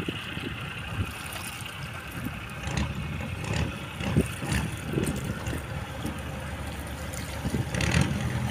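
Low, uneven rumble of fishing-boat engines idling across the harbour water. A steadier low engine hum sets in near the end as the waiting purse seiner gets under way.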